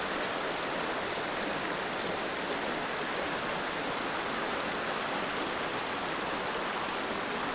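Creek water rushing over rocks in a shallow riffle: a steady, even rush.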